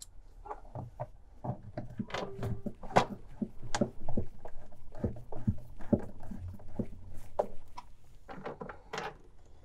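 Irregular clicks, taps and knocks of plastic refrigerator interior parts being handled and fitted into place.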